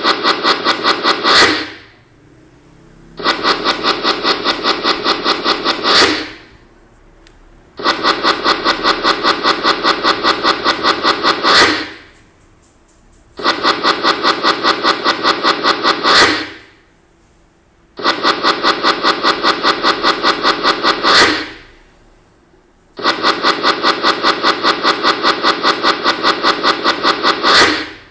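PowerPoint's typewriter text-animation sound effect: rapid, even clacking as each bullet line types out letter by letter, six runs in all, each ending in a louder stroke, with short pauses between them.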